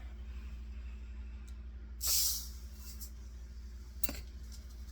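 Glass beads sliding in a short hissing rush about two seconds in, over a steady low hum, with a light click near the end.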